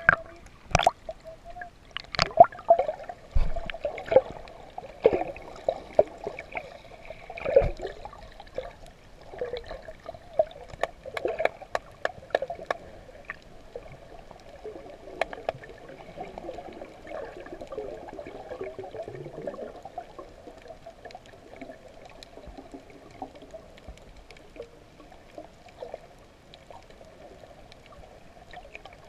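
Water heard through a half-submerged and then submerged camera: irregular splashing and gurgling with sharp clicks for roughly the first half, settling into a quieter, steady muffled underwater wash.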